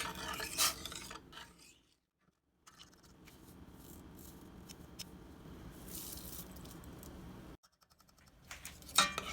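A utensil stirring and scraping in a pot of salt brine to dissolve the salt, with scattered light clicks and scrapes over a faint steady background noise. The sound breaks off twice, and a quick run of clinks comes near the end.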